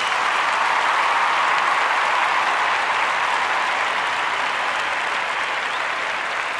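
Sustained applause, an even rush of many hands clapping that fades slowly.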